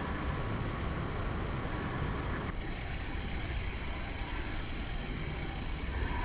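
Steady hiss and low rumble of a live radio audio feed between transmissions, with a faint steady hum; the noise changes slightly in character about two and a half seconds in.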